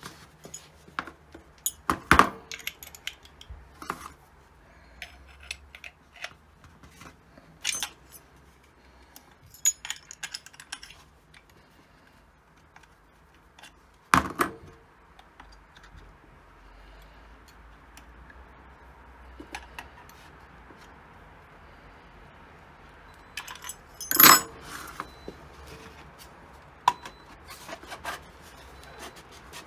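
Steel wrenches clinking and clattering on a router's collet nut and on the bench while the router bit is changed, with scattered light metal clicks and three louder knocks, near the start, about halfway and near the end.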